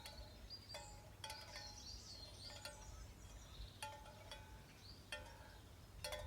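Tin chimes of a hanging sound sculpture clinking faintly now and then: a handful of separate light strikes, each ringing briefly with a metallic tone, with the longest gap in the middle.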